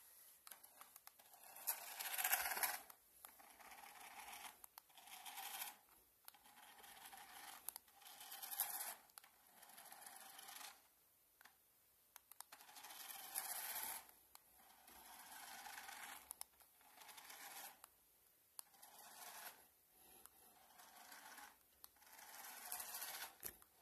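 Faint scratching or scraping strokes repeated about every one and a half to two seconds, each lasting around a second.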